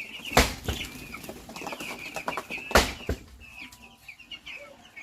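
A flock of chickens chirping and clucking in a busy, continuous chatter, with two sharp knocks, about half a second in and near three seconds.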